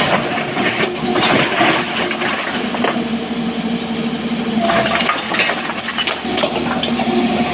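SANY SY225 hydraulic excavator running under load while stones clatter, scrape and crash against its bucket and the rock around it.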